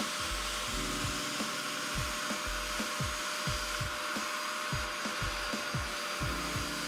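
Portable carpet extractor's suction motor running steadily as its clear upholstery nozzle is drawn across the truck's carpet, pulling water and dirt up. Under it, background music with a deep, thudding bass beat.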